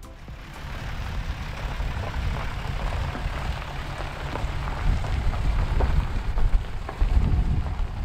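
Dodge Ram 2500 pickup with a Cummins turbo-diesel driving past on a gravel road: low engine rumble with tyres crunching and popping over loose gravel, growing louder as it passes and moves off.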